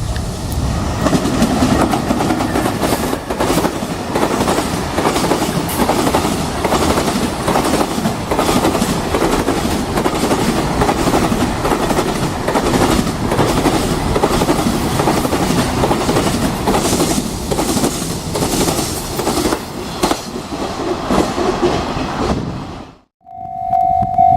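Container freight train hauled by an EH500 electric locomotive passing close by: a steady heavy rumble with the clatter of wheels over rail joints. Near the end the sound cuts off abruptly and a steady high tone begins.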